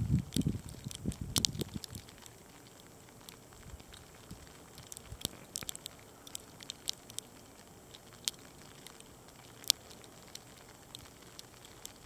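Graupel pellets ticking sparsely and irregularly against the microphone and clothing. Wind buffets the microphone with low rumbling gusts in the first two seconds.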